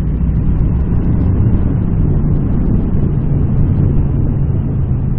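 Triumph Street Cup's 900 cc parallel-twin engine running at a steady cruise through its stock exhausts, under wind and road noise.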